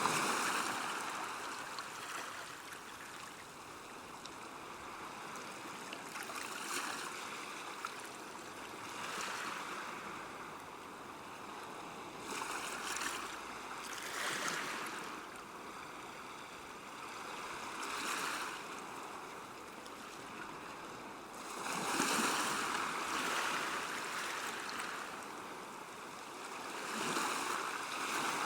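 Calm sea washing gently on a shore: small waves break and wash in and out as a steady hiss, with soft surges every few seconds. The biggest wash comes about three-quarters of the way through.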